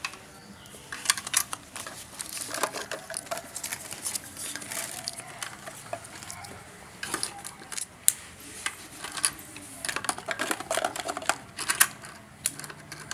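Irregular sharp plastic clicks and clatter from a toy cash register being handled: its cash drawer worked open and shut and the plastic play coins inside knocking about.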